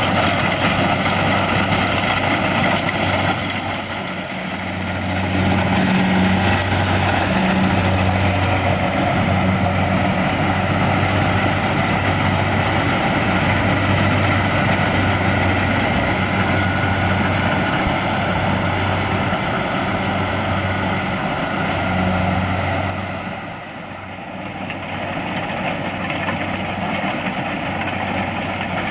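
Kubota DC-70 Plus combine harvester running steadily while harvesting rice: a continuous engine and machinery drone with a low hum that swells and fades in uneven pulses through the middle. The sound drops briefly twice, a few seconds in and again near the end.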